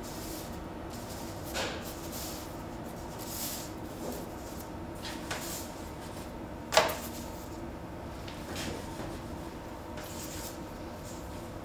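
Raw gingerbread dough shapes being set down on a parchment-lined baking tray: soft taps and paper rustles every second or two, with one sharper knock about seven seconds in, over a steady low hum.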